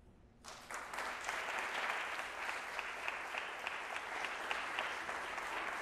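Audience applauding, starting about half a second in and continuing steadily.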